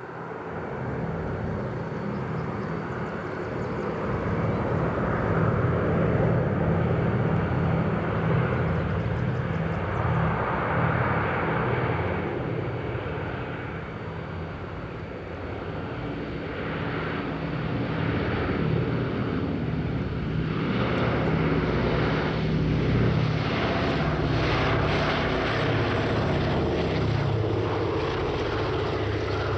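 Boeing B-17 Flying Fortress's four Wright R-1820 Cyclone radial engines running as the bomber comes in to land and rolls along the runway. The sound fades in at the start, grows louder over the first few seconds, dips around the middle and swells again in the second half.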